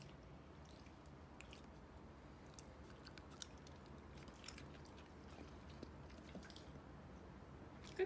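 Faint, scattered wet clicks of a Jindo dog chewing and swallowing a small piece of ham over near-silent room tone, with a sharper click at the very end.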